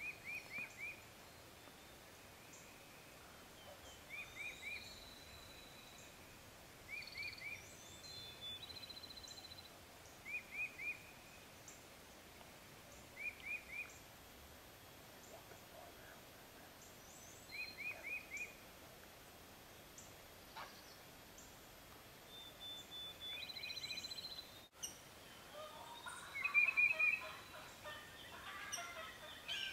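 A songbird repeating a short phrase of three or four quick high notes every few seconds over faint outdoor hiss; near the end a wild turkey gobbles, much louder and lower than the songbird.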